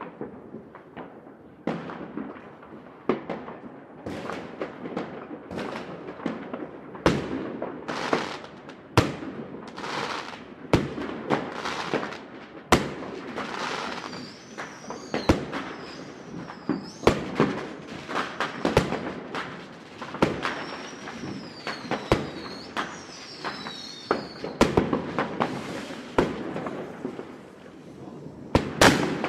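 Fireworks going off over a city: a dense run of sharp bangs and crackling, with several wavering whistles from rockets about halfway through.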